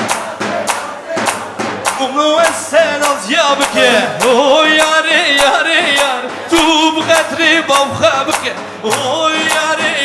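Live Kurdish halay dance music from a wedding band. A fast, steady drum beat runs under an ornamented, wavering melody, with singing.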